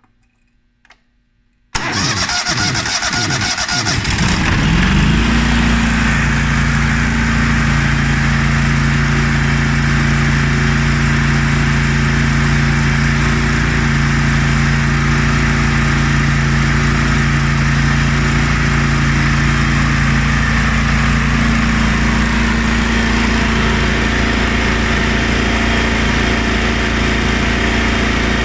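Gasoline engine of an air compressor starting about two seconds in, speeding up for a few seconds, then running steadily.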